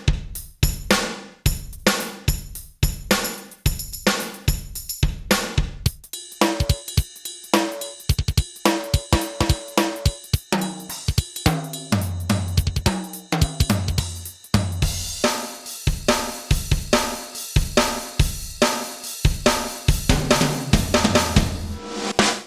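Sampled drum kit playing a steady beat on an Ensoniq ASR-10 sampler, recorded direct from its outputs. From about six seconds in, pitched instrument notes and a low bass line play along with the drums.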